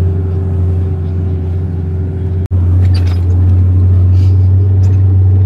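Four-wheel-drive vehicle's engine and drivetrain running under load on a rough dirt mountain track, a steady low drone, with a brief break about halfway through.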